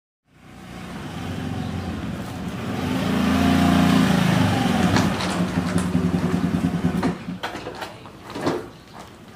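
Motor vehicle engine running, growing louder over the first few seconds, then fading and stopping about seven seconds in. A few sharp knocks follow near the end.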